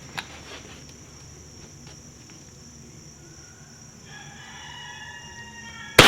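A rooster crows in the background for about two seconds. Then, right at the end, comes a single sharp crack from a Savage 93F .22 WMR rimfire rifle firing.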